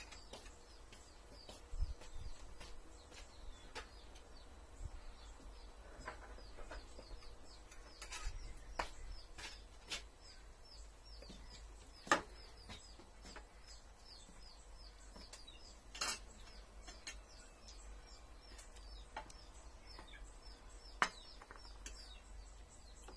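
Metal spoons and forks clinking sharply against ceramic plates every few seconds as rice is scooped and served, over faint, rapid, repeated chirping of small birds.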